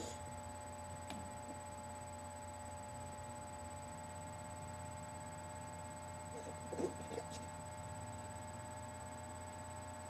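Domestic cat coughing: one cough right at the start, then a quick run of three coughs about seven seconds in, over a steady electrical hum.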